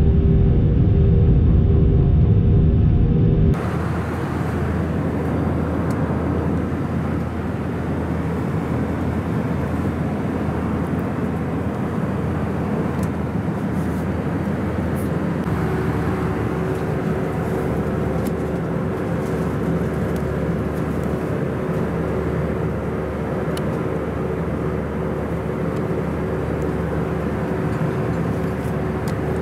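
Airbus A319 engine and airflow noise heard inside the cabin, a steady roar. About three seconds in it cuts from a louder recording with a strong low hum to quieter steady cabin noise, and a steady hum joins it about halfway through.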